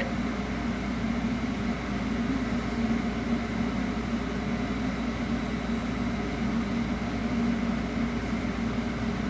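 Steady mechanical hum with a low drone, like a fan or appliance running, holding even throughout.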